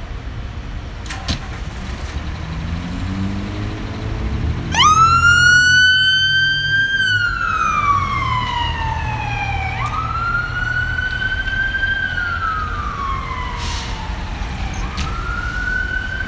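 A fire department battalion chief's SUV pulling out on an emergency response: its engine accelerates, then about five seconds in its electronic siren starts a wail that rises and falls in slow sweeps about every five seconds.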